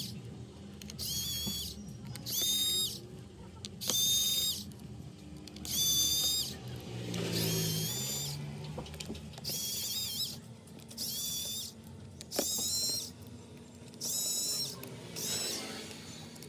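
Small electric precision screwdriver whirring in about ten short high-pitched bursts, each under a second, as it backs out the tiny screws of a smartphone's back plate one at a time.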